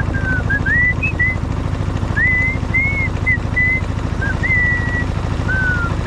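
A man whistling a tune: a string of short and held notes that slide up and down. Under it runs the steady, loud, low throb of the boat's engine.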